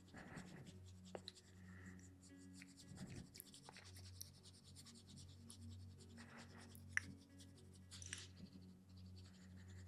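Faint scratching of a Prismacolor coloured pencil working over paper, with a few small ticks, over a steady low hum.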